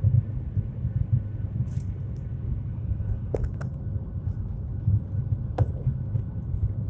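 Steady low rumble of a Boeing airliner's jet engines and airflow, heard from inside the cabin during the climb after takeoff. There are a few faint clicks about halfway through and near the end.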